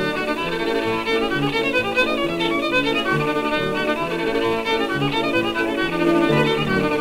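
Instrumental background music led by a violin, playing a melody of held notes over a lower bass line.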